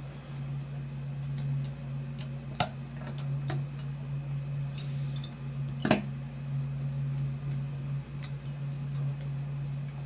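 Small screwdriver ticking and clicking on the spring screws as they are turned into the heatsink mount of an XFX RX 480 graphics card, scattered light clicks with a louder one about six seconds in. A steady low hum runs underneath.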